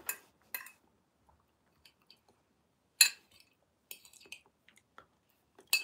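Wet chewing and mouth smacks from eating juicy banpeiyu (giant pomelo) flesh. Sparse short smacks, the loudest about three seconds in, then a few more around four seconds and near the end.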